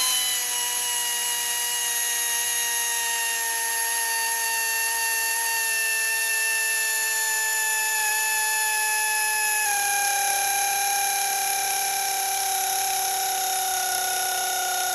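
Pneumatic air ratchet running without a break as it tightens the nut of a valve spring compressor down onto a cylinder head's valve springs. Its steady whine, with a hiss of exhaust air above it, slowly drops in pitch and steps lower about ten seconds in.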